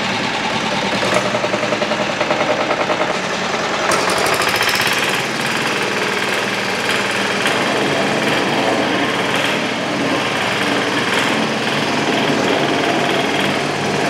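The 10 HP Greaves single-cylinder diesel engine of a walk-behind double drum road roller runs with a steady, fast knocking beat while the roller is driven forward. The sound grows louder and brighter about four seconds in.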